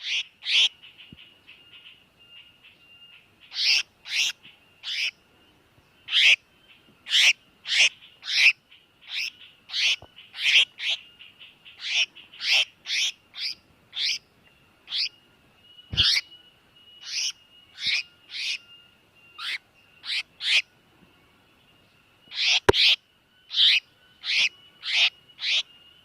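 Tiểu mi đất bird giving its distress call: short, sharp, downward-sweeping notes repeated about one or two a second in irregular runs, with brief pauses near the start and a few seconds before the end. A faint steady high whine runs underneath.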